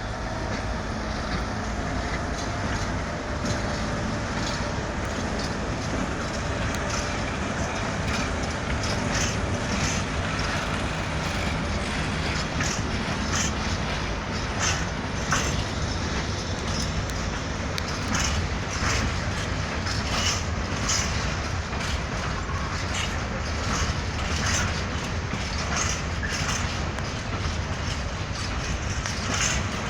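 Freight train passing: a steady low rumble of locomotive and wagons, with wheels clacking irregularly over the rail joints from about eight seconds in.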